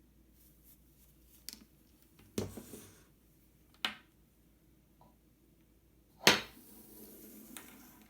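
A few short clicks and knocks from an object being handled, with a short rattle after the second. The loudest is a sharp knock about six seconds in, followed by soft rustling.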